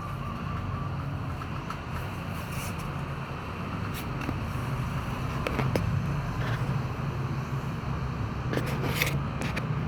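Steady low background rumble with a few faint, short clicks and scrapes scattered through it.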